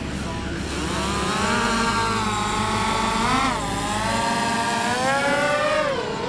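A small motor's whine, several tones together, its pitch rising and falling as the speed changes.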